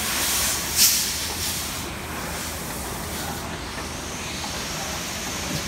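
Steady hissing over a low rumble, with a sharper burst of hiss just under a second in.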